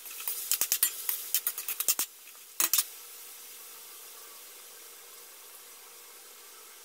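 Metal spatula scraping and clinking against an aluminium wok while stirring frying onion and tomato, a quick run of sharp clicks for about two seconds, then a brief cluster of knocks as the spatula is set down in the pan. After that only a faint steady hiss remains.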